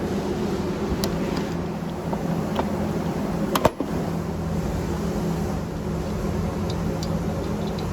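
A steady, pitched motor drone, with a few light clicks and one sharp knock about three and a half seconds in.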